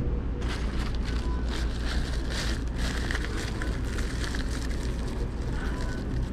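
Aluminium foil wrapper crinkling as it is handled, a dense run of crackles starting about half a second in and thinning out near the end, over a steady low hum.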